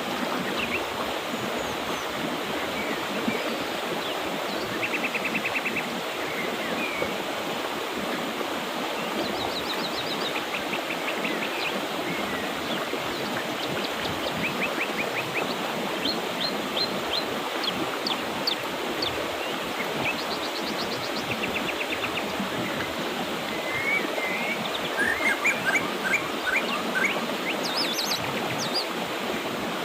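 Mountain river flowing steadily, with birds chirping and trilling over it throughout; the calls come more thickly near the end.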